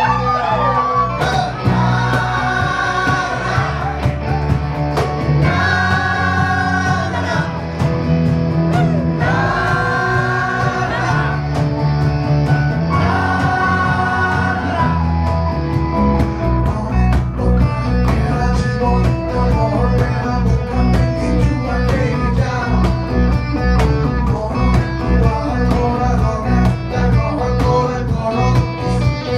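Live band playing: a male singer's long, wavering sung phrases over electric guitar and percussion. After about halfway the held vocal lines give way to a busier, steady beat.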